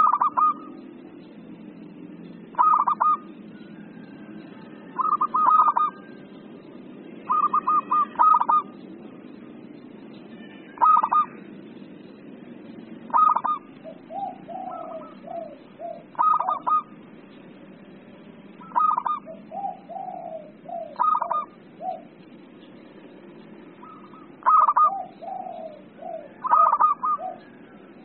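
Zebra doves (perkutut) in excited, agitated calling: short bursts of rapid staccato cooing repeat about every two to three seconds, with softer, lower trilled coos between some of them.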